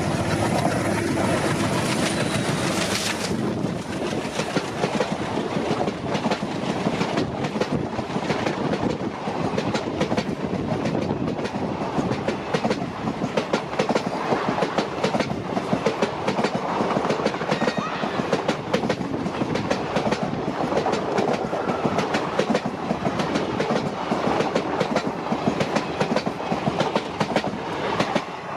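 Diesel-hauled train running on the rails, its wheels clattering over the rail joints in a fast, continuous clickety-clack over a steady rumble.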